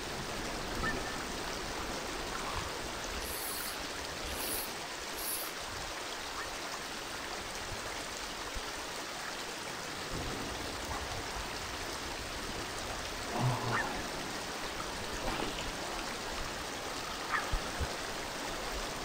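Steady rush of flowing river water, with a few faint, brief sounds over it.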